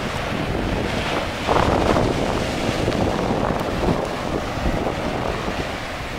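Wind buffeting the microphone over the steady wash of ocean surf, with a stronger gust about one and a half seconds in.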